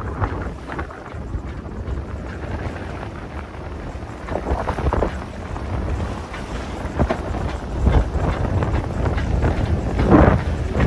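Wind buffeting the microphone on the deck of a sailboat under sail, over the rush and splash of water along the hull. Gusts and splashes swell several times, the loudest near the end.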